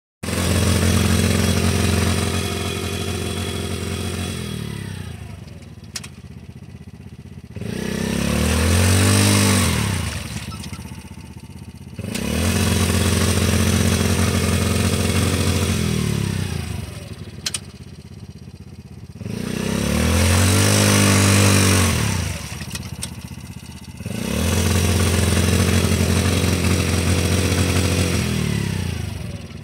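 Yamaha Grizzly 90 youth ATV's small single-cylinder four-stroke engine revving up in about five long bursts and dropping back to idle between them, as it tries to pull through deep mud.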